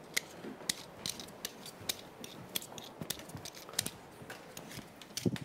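Kitchen utensils clicking and scraping in short, irregular strokes while potatoes are being peeled and cut at a counter.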